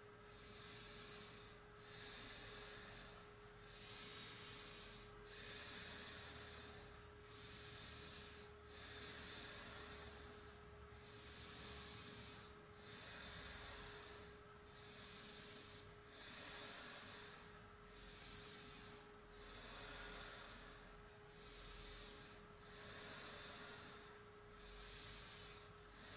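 A person doing a slow, controlled yoga breathing exercise, each breath an audible hiss about every one and a half seconds, alternating longer and shorter. A faint steady hum lies underneath.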